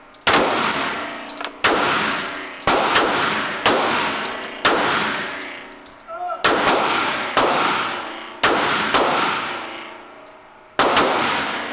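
Handgun shots fired one at a time, about nine in all, mostly about a second apart with a longer pause past the middle and near the end. Each shot rings on in the echo of the indoor range.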